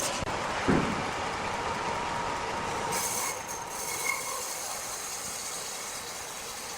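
Machinery running with a steady high whine, and a thump just under a second in.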